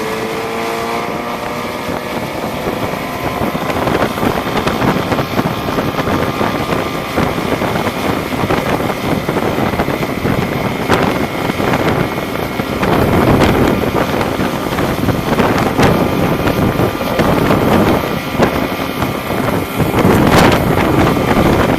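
Motorboat engine running at speed, with wind buffeting the microphone.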